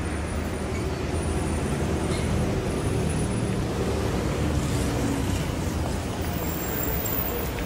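Steady city traffic noise, a low, even rumble of road vehicles.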